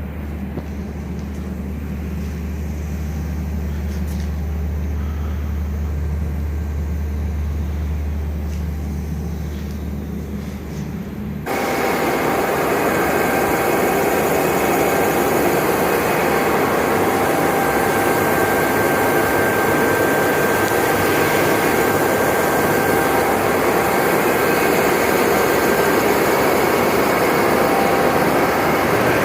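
A steady low engine-like hum, then, about eleven seconds in, an abrupt change to a louder steady machine noise with a few constant whining tones.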